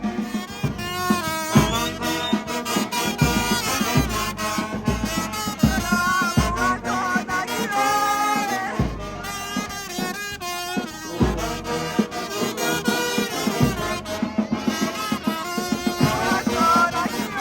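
Music with a steady beat and a brass melody.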